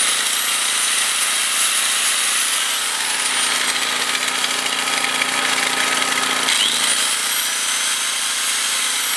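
Angle grinder spinning up with a rising whine, running for about three seconds and winding down, then spinning up again near seven seconds and starting to wind down near the end. Under it the Honda EX1000 generator's engine runs steadily, loaded by the grinder plugged into it.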